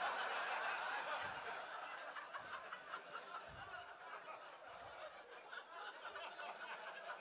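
Comedy club audience laughing at a punchline, loudest at the start and slowly dying away.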